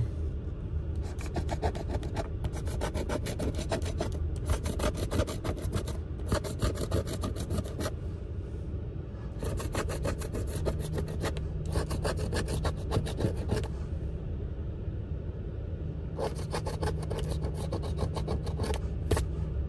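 A coin scratching the coating off a scratch-off lottery ticket in quick back-and-forth strokes, in spells of one to two seconds with short pauses between.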